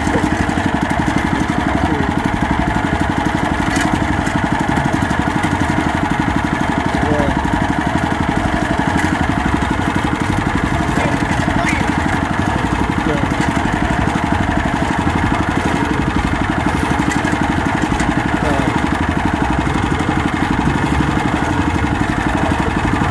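A small fishing boat's engine runs steadily under way, its fast even beat unchanging throughout.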